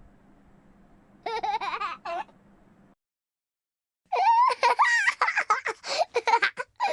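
Cartoon children's voices giggling and laughing: a short giggle about a second in, then a longer bubbling run of laughter from about four seconds on.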